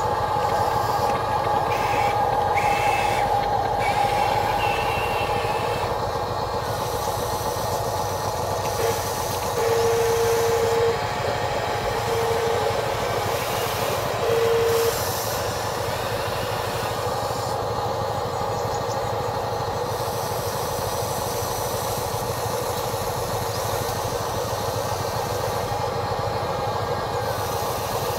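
Small electric motors of a Huina 580 RC excavator whirring steadily as it digs and loads sand, with a few short, louder steady tones about a third of the way in.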